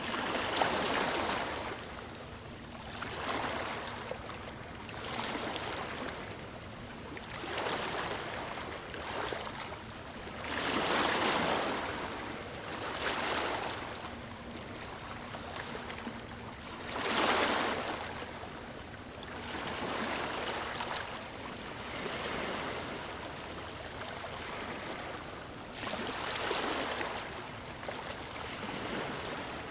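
Ocean waves breaking on a beach: a steady wash of surf that swells and falls back every couple of seconds, with two bigger breakers, one about a third of the way in and one past the middle.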